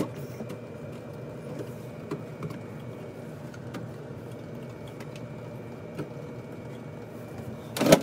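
Steady low mechanical hum with a few faint clicks, and one short louder knock or rustle near the end.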